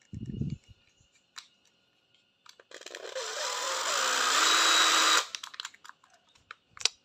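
A Hitachi 12V cordless impact driver is run free for about two and a half seconds, its motor noise rising in pitch and then cutting off sharply. The run starts in a choppy, stuttering way, which is blamed on a loose wire. Before that there is a heavy thump as the battery pack is pushed in, then a click.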